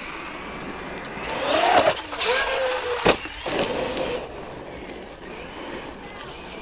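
Traxxas Maxx V2 RC monster truck's brushless motor and drivetrain whining as it accelerates across loose gravel, the pitch rising about a second and a half in and then holding, with tyres throwing grit. One sharp knock a little after three seconds in.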